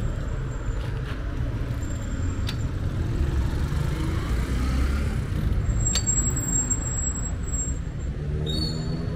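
City street traffic close by: the low, steady running of bus and car engines. A brief high squeal comes about six seconds in.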